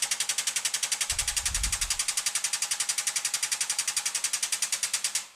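Shop press running in rapid, even pulses, about a dozen a second, pressing a socket head cap screw into a small hand knob; it stops just before the end.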